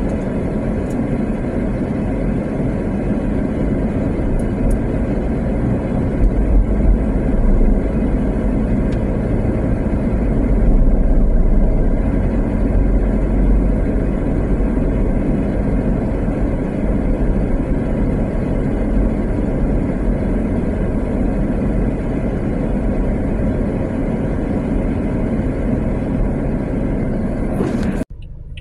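Steady low rumble of road and engine noise heard inside a moving vehicle, heavier for several seconds about a quarter of the way in. It drops away suddenly just before the end.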